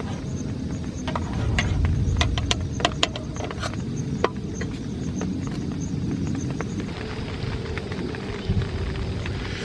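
Rain falling on a tent's fabric: irregular sharp drop taps over a steady low rumble, which is heavier between about one and three seconds in.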